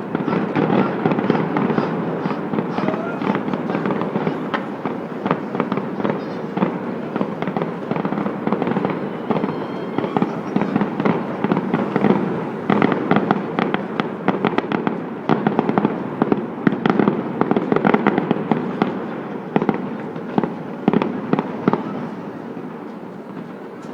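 Many fireworks going off at once: a dense, continuous barrage of overlapping bangs and crackles. It thins out slightly near the end.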